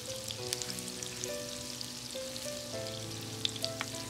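Butter melting and sizzling in hot oil in a frying pan, a steady crackle with scattered small pops. Soft background music with held notes plays underneath.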